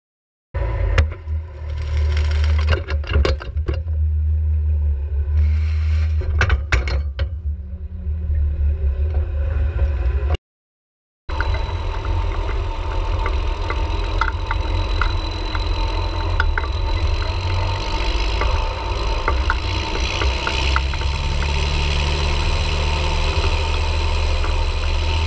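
Tractor engine running under way, heard close to its vertical exhaust stack, with a heavy low rumble and rattling clatter. The sound cuts out for about a second near the middle and then runs on steadily.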